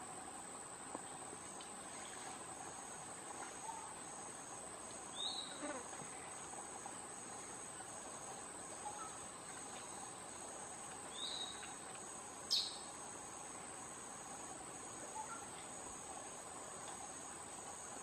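Steady tropical insect chorus: a continuous high buzz with a pulsing chirp repeating about once a second just below it. Short bird chirps come three times, about five, eleven and twelve and a half seconds in, the last the loudest.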